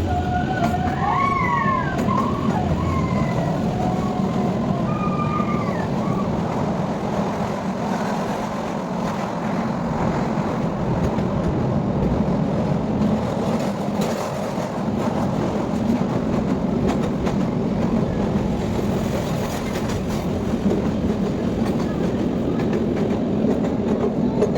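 Kalka–Shimla narrow-gauge toy train in motion, with a steady running rumble and wheel noise. A few short high-pitched tones that rise and fall come in the first six seconds.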